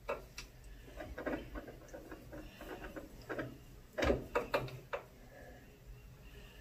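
Irregular light clicks and rattles from a milling machine table being moved by its hand crank, as the table is set off the centre line, with a louder run of clicks about four seconds in.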